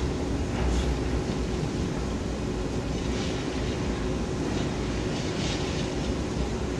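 Heavy demolition machinery running steadily: a long-reach demolition excavator's diesel engine and hydraulics give a low rumble with a steady hum, and a few brief higher rattles come through about one, three and five seconds in.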